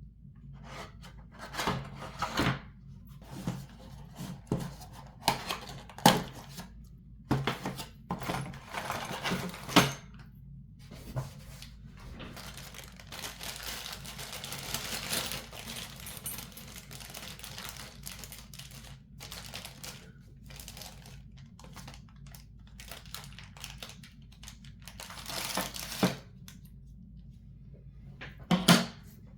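Computer parts and their packaging being handled: plastic and paper crinkling and rustling, with scattered sharp clicks and knocks, and a longer stretch of rustling near the middle.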